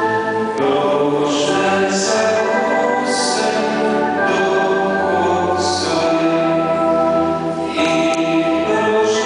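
Choir singing in a church, long held chords with the hiss of sung 's' sounds now and then.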